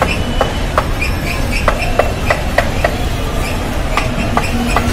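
Scales being scraped off a large rohu fish with a hand-held scaler: a run of quick, sharp scraping strokes at an uneven pace, over a steady low background rumble.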